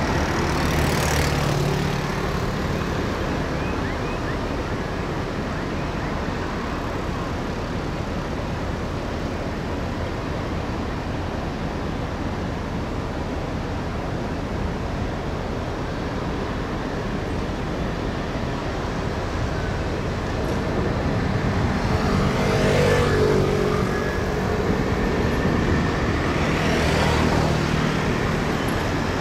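Road traffic: a steady urban traffic hum with vehicles passing close by three times, once near the start and twice in the last third.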